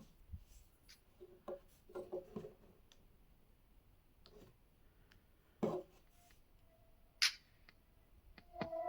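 Faint handling noise: scattered light clicks and taps of small objects, with a sharper click a little after seven seconds.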